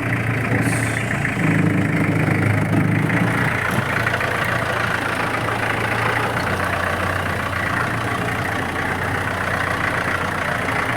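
Off-road jeep's engine running as the jeep reverses. Its note rises and climbs for about two seconds early on, then settles into a steady drone.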